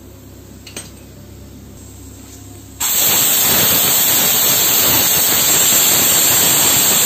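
Aluminium stovetop pressure cooker venting steam through its weight valve: a loud steady hiss that starts suddenly about three seconds in, the sign that the cooker has come up to full pressure.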